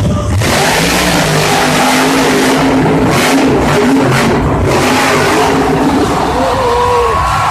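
Monster truck engine revving hard as the truck drives across the dirt, a loud continuous engine noise whose pitch rises and falls with the throttle.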